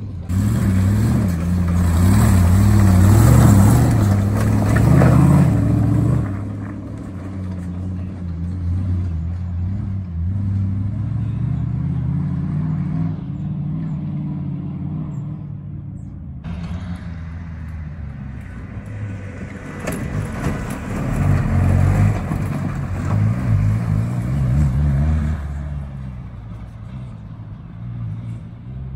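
Comp safari off-road competition vehicle's engine running hard through a wooded course, revving up and down, loudest in the first six seconds and again around twenty seconds in. The sound breaks off abruptly around sixteen seconds in.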